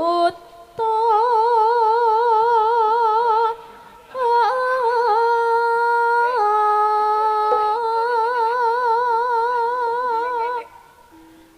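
A single high melody line in long held notes with an even vibrato, in two phrases with a short break between them. The second, longer phrase steps down through several sustained notes with small ornamental turns.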